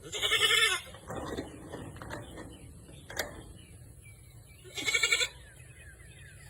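Goat bleating: two loud, high-pitched bleats, one at the start and another about five seconds in, with a fainter call in between.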